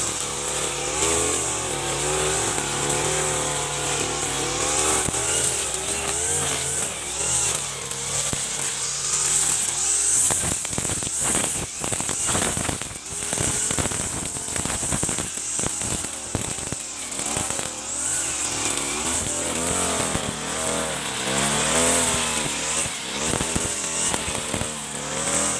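Backpack brush cutter engine running as its nylon line head cuts grass, the engine pitch rising and falling as the throttle is worked, over a steady high hiss. A run of sharp ticks and knocks comes through in the middle.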